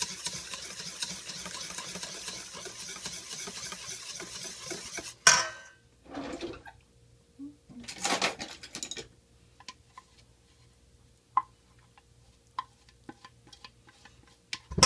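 A wire whisk stirring flour batter in a stainless steel bowl, a fast, steady scraping swish for about five seconds that ends with a sharp knock against the bowl. Then two short pours of liquid yeast mixture into the batter, and scattered light clicks and taps of utensils on the metal bowl.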